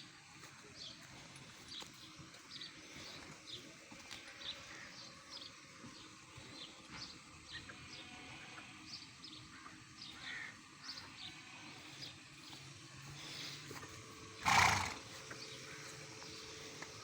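A horse gives one loud, short, breathy sound near the end, over faint high chirps that repeat throughout.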